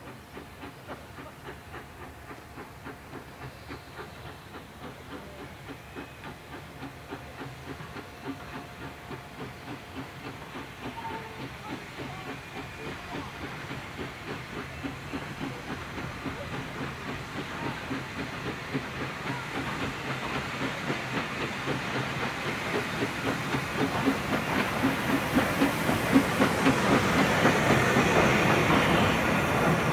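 Furness Railway No. 20, an 1863 Sharp, Stewart 0-4-0 steam locomotive, working a train with a steady, regular exhaust beat and steam hiss that grows louder as it approaches. Near the end the coaches run close by with wheel clatter on the rails.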